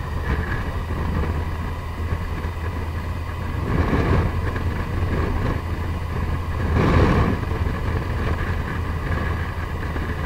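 Yamaha FJR1300 sport-touring motorcycle's inline-four engine running steadily at cruising speed, heard from the bike with wind and road noise. Two brief louder rushes of noise come about four and seven seconds in.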